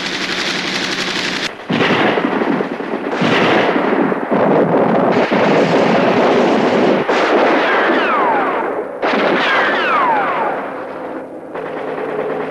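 Battle soundtrack of heavy machine-gun and rifle fire with blasts, laid in abruptly cut segments. Several falling whistles come about two-thirds of the way through. Near the end the firing drops back and a steady hum takes over.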